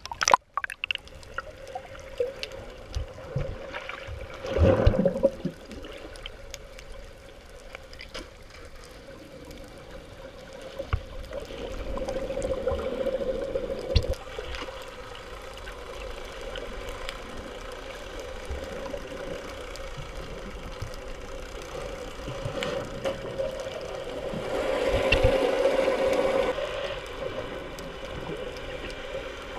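Muffled underwater sound picked up by a GoPro inside its waterproof housing while snorkelling: a steady low hum with scattered clicks. It swells into a louder swishing surge about five seconds in and again around 25 seconds.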